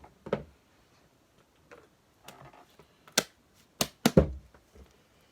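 A few sharp clicks and knocks of objects being handled on a table, with the loudest pair close together about four seconds in.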